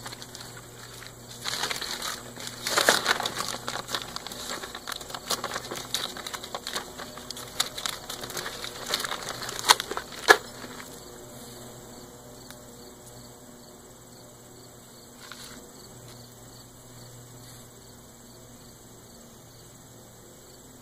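Paper instruction sheets rustling and crinkling as they are handled and folded, ending with two sharp snaps about ten seconds in. After that only faint, steady insect chirping remains.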